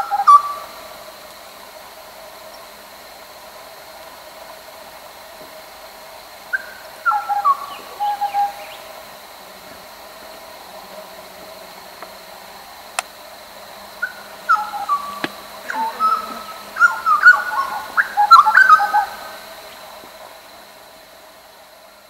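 Birds calling in three bouts of clear, descending whistled notes. The last bout is longer and denser, with several birds' notes overlapping. A single sharp click comes about halfway through, and a faint steady high tone runs behind.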